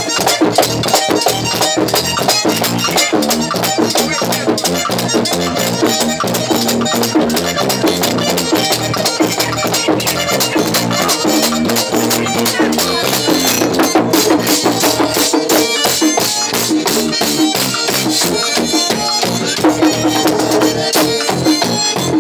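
Live merengue típico band playing: an accordion carries the melody over a fast, steady beat of tambora drum and scraped percussion, with electric bass underneath.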